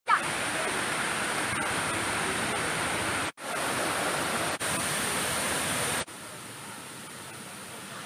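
Steady rushing of a waterfall and its rocky stream. Several brief dropouts break it, and it is quieter for the last two seconds.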